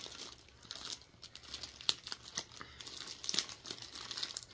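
Plastic mailer wrapped in packing tape crinkling and tearing as it is cut and pulled open by hand, with a few sharp clicks in between.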